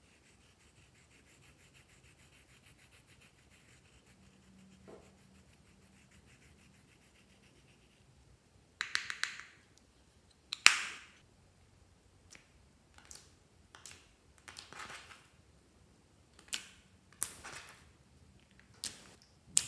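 Faint, fine scratching of a plastic tool scraping silver pressed-powder eyeshadow out of its compact. From about nine seconds on, a series of sharp clicks and crackles, the loudest about eleven seconds in, as the compact is handled and clear slime is pressed and folded.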